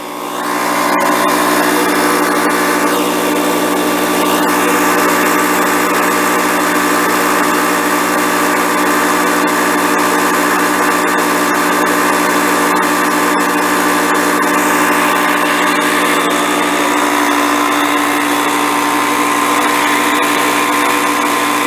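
Top Craft TCK 182 small portable air compressor running with a steady buzzing hum. It has apparently no air tank, so it has to run nonstop to deliver air.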